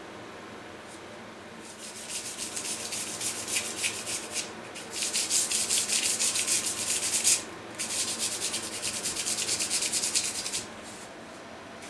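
A small abrasive block rubbed quickly back and forth by hand along the red-painted rim of a carriage wheel, in three spells of fast scraping strokes with short pauses between.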